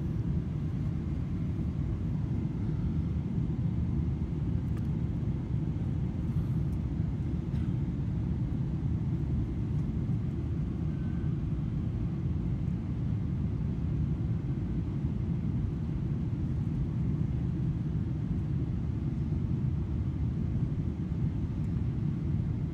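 Steady low rumble of a Boeing 777-300ER's GE90 engines and airflow, heard inside the passenger cabin during the approach.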